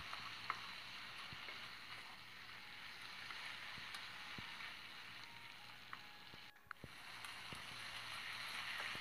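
Chicken in tomato masala sizzling gently in oil in a pot, a steady faint hiss with small scattered pops and ticks; the sound drops out briefly about two-thirds of the way through.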